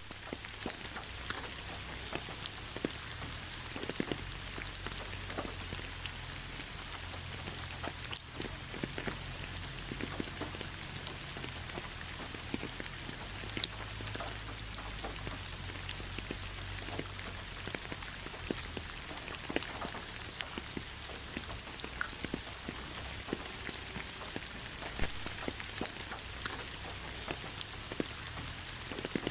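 Steady rainfall with many individual drops pattering and ticking on a surface.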